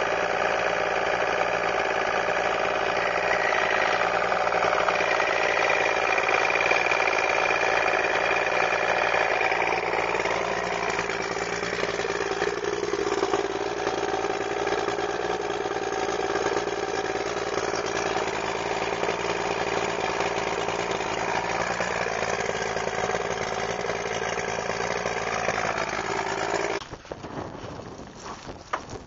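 A 1973 Chrysler 70 hp three-cylinder two-stroke outboard running steadily. Near the end it abruptly becomes much quieter.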